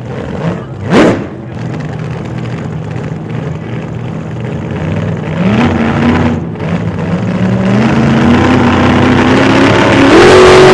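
Rear-mount turbocharged Ram 1500 Hemi V8 accelerating, its engine pitch climbing in steps and growing steadily louder toward the end. A brief whoosh rises and falls about a second in.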